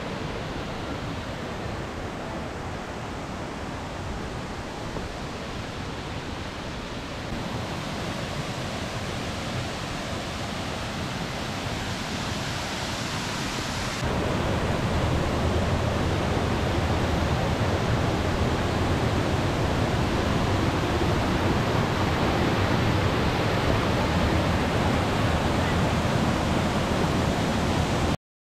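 Waterfall running with a steady rush of falling water, heard in a few separate takes that cut abruptly about 7 and 14 seconds in, fuller and louder after the second cut.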